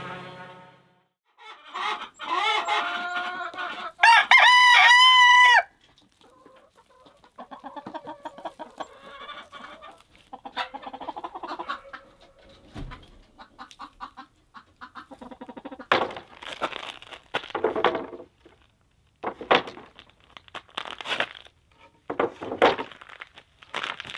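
A flock of chickens: a rooster crows loudly once, a long arched call of about a second and a half, just after other calls from the flock, and hens cluck softly afterwards. Near the end come a run of short knocks and scuffs.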